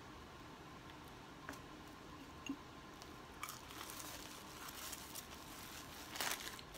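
Faint handling of a burger's paper wrapper: a few small clicks, then rustling and crinkling that builds from about halfway and is loudest near the end.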